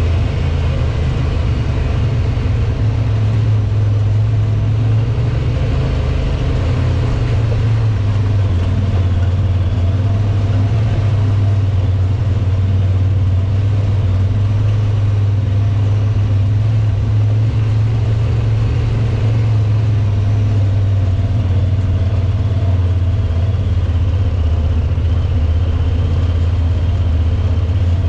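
Side-by-side UTV engine running steadily at low speed, a constant low drone.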